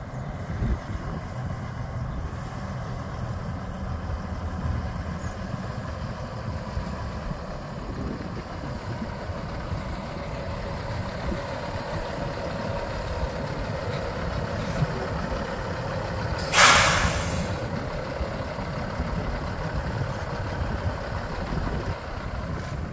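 Diesel engine of a Peterbilt 388 tractor truck running at low speed and idling with a steady low rumble. About two-thirds of the way through, a loud, short burst of air hiss from the truck's air brake system.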